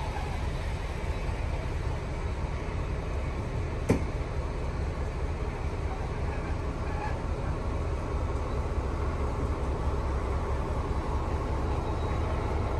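Rail milling train and its coupled diesel locomotive rolling slowly past: a steady low rumble of diesel engines and wheels on the track, with a single sharp click about four seconds in.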